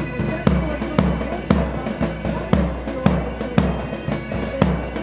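Military pipe band playing a march: bagpipes sounding a melody over their steady drones, with a bass drum striking on the beat about twice a second.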